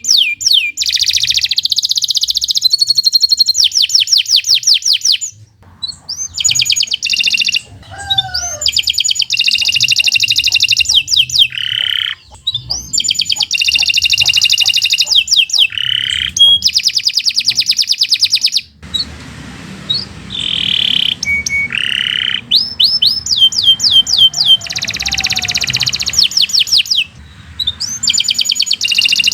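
Domestic canary singing a long, fast song of rapid trills and quickly repeated notes, with a few brief breaks between phrases.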